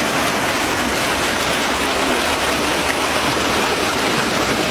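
Reservoir outflow water gushing and churning through a concrete pressure-break box at close to maximum discharge, a steady rushing of water.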